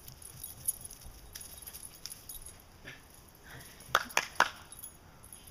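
Three quick, sharp hand claps about four seconds in, calling the puppy back.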